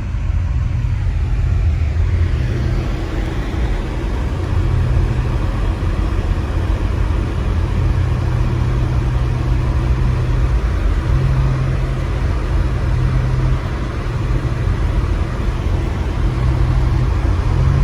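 Steady low rumble of a car driving on deep snow, heard from inside the cabin: engine and tyre noise with an even hiss over it.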